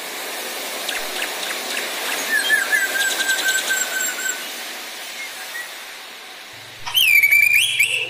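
Drongo (srigunting) singing: a run of clicks and chatter with a long, slowly falling whistle, then near the end a loud whistled note that dips and rises again, the loudest sound.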